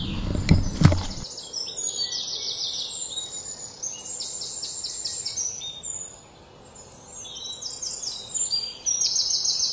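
A few knocks in the first second, then many overlapping high, rapid chirping bird calls in repeated short trills.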